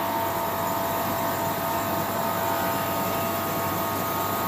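Commercial cube ice machine running in its harvest (defrost) cycle, its hot-gas valve open and hot refrigerant gas warming the evaporator: a steady hiss and hum of the refrigeration system with a couple of faint steady tones, unchanging throughout.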